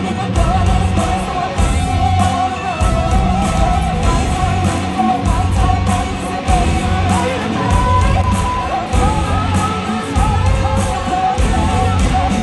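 Loud rock song with a singer and electric guitar over a steady pulsing beat.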